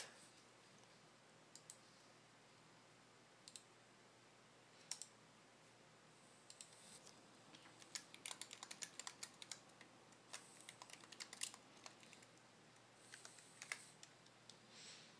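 Faint typing on a computer keyboard: a few scattered keystrokes, then quick runs of key clicks from about the middle on, as a message is typed out.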